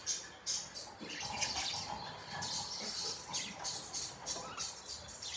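Budgerigars chirping and chattering: rapid, busy high chirps and warbles overlapping throughout.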